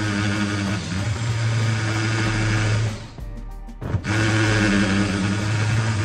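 Cordless drill running under load as it bores holes in a sheet-metal air duct, a steady motor hum. It stops for about a second midway, with a sharp click, then runs again.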